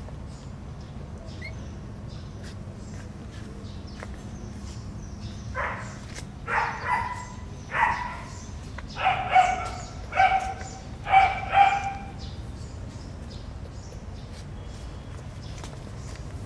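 Baby macaque giving a string of about nine short, pitched calls over some six seconds, several in quick pairs, starting about five seconds in and loudest near the end of the run.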